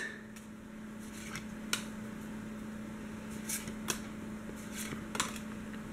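Pokémon trading cards being flipped through by hand, card sliding over card, with a handful of soft, short ticks over a steady low hum.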